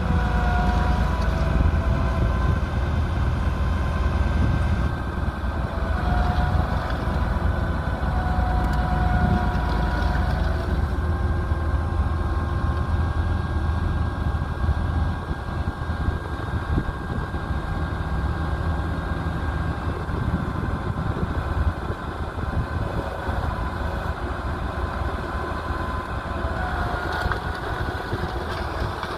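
New Holland tractor's diesel engine running steadily with a deep rumble.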